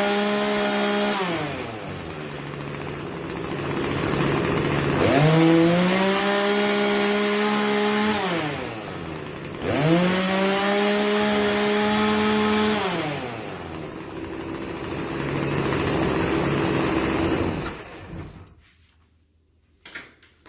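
Craftsman 40cc two-stroke chainsaw revved to full throttle three times, settling back to idle between revs, while its carburetor's high-speed jet is turned about three-quarters of a turn to cure bogging and a failure to wind out. Near the end the engine dies away.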